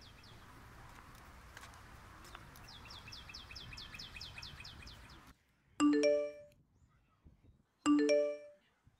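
Outdoor background with a bird chirping in a quick series of short falling notes, about five a second. The ambience then cuts off, and a smartphone alert chimes twice, about two seconds apart.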